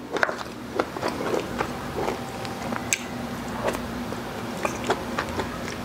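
Close-miked eating of goto, a Filipino rice porridge, from a metal spoon: wet chewing and mouth clicks, many small sharp ones, over a faint steady hum.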